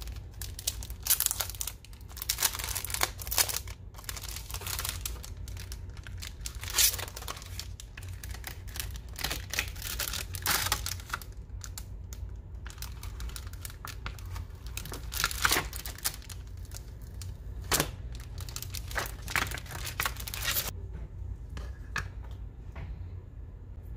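Paper and stationery handled close to the microphone: bursts of crinkling and tearing, over a steady low hum. Near the end the bursts stop and only a few light clicks remain.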